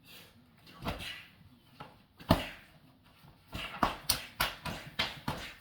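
One sharp smack about two seconds in, then a quick irregular run of taps and thumps, about five a second.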